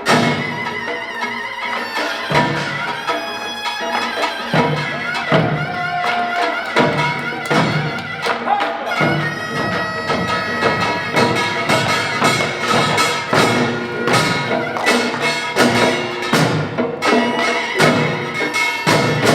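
Korean pungmul ensemble playing traditional folk music: a taepyeongso shawm's piercing, reedy melody held over a steady beat of drum strokes.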